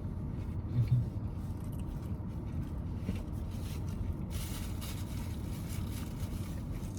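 Steady low rumble of a car cabin with the engine idling, with a brief rustling hiss from about four and a half to six and a half seconds in.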